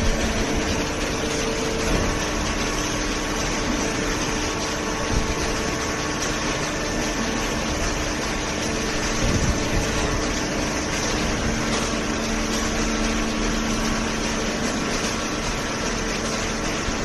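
Industrial cardboard shredder and baler machinery running: a steady, dense mechanical noise with a constant hum, and a few brief knocks.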